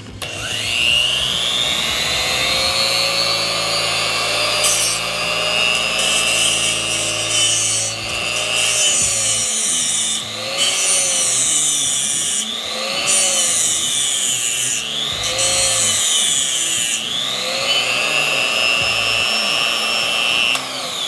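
A Blue Demon Stay Sharp 2 tungsten grinder's electric motor spins up to a steady high whine and winds down near the end. Between these, a tungsten electrode is sharpened in its angle guide: a hissing grinding sound comes and goes in several stretches, and the whine dips in pitch and recovers a few times.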